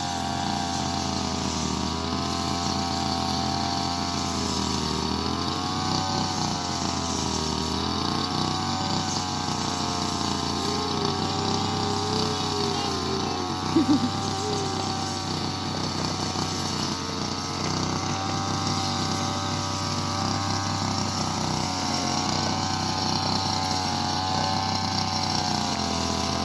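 Petrol brush cutter (grass-cutting machine) running throughout, its engine speed rising and falling every couple of seconds as it cuts grass. One short sharp sound about 14 seconds in.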